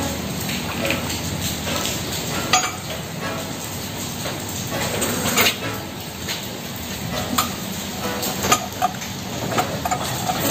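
Metal chain and hook of the spare-tyre winch clinking against the alloy wheel as they are worked loose through the wheel's centre hole: scattered sharp clinks over a steady hiss.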